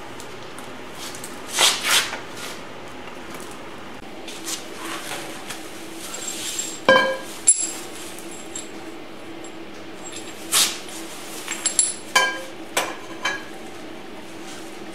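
Steel tubing and parts of a welded steel hoist frame knocked and set against one another: scattered metal clanks and clinks, with one ringing clang about seven seconds in.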